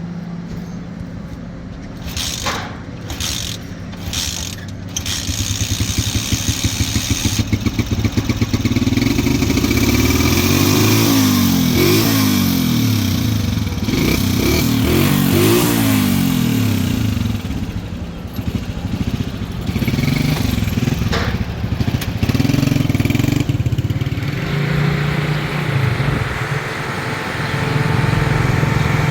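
Motorcycle engine running under way, its pitch rising and falling repeatedly as it revs up and eases off, then settling to a steadier note near the end. A few sharp knocks come in the first seconds.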